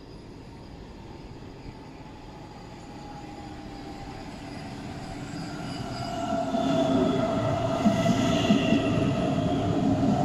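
Hamburg S-Bahn DB Class 474 electric train pulling into the platform. It grows louder over the first several seconds, then runs past close by with wheel rumble and an electric whine that slowly drops in pitch as it brakes.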